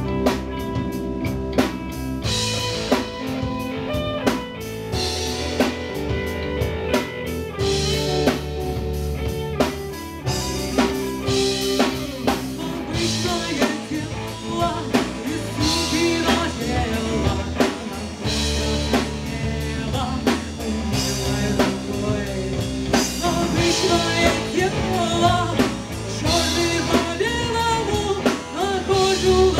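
Live rock band playing: electric guitar, bass guitar and drum kit keeping a steady beat, with a lead vocal singing over the second half.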